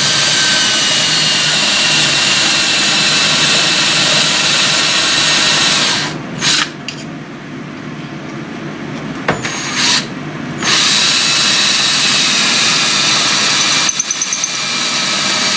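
Ryobi 18 V cordless drill running, drilling through a plastic template to spot holes into the metal plate beneath. It stops about six seconds in and gives a couple of short bursts, then runs steadily again from about eleven seconds.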